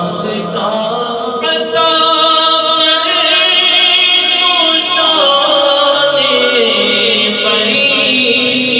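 A man's voice singing a devotional naat into a microphone in long, drawn-out held notes, getting louder about two seconds in.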